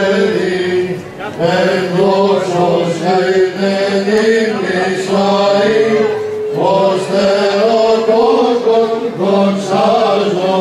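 Men's voices singing Greek Orthodox Byzantine chant: a slow, melismatic melody over a steady held drone note, pausing briefly between phrases.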